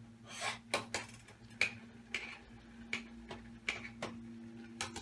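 A spoon scraping and clinking against a cooking pot in short, irregular strokes, about one every half second to second, over a steady low hum.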